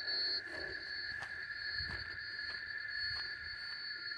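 Steady high-pitched insect buzzing, held on two pitches, with faint regular crunches of footsteps through dry grass about every two-thirds of a second.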